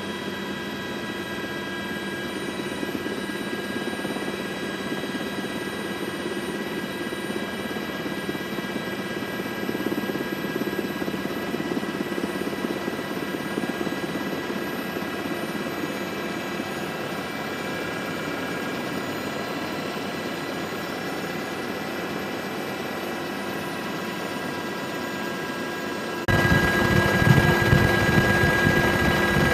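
Helicopter cabin noise in flight: a steady engine and rotor drone with several high, constant whining tones above it. About 26 seconds in, it suddenly gets louder.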